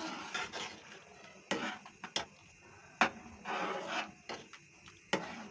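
A utensil clinking and scraping against a cooking pot as boiling dal is stirred, with about five sharp knocks at uneven intervals.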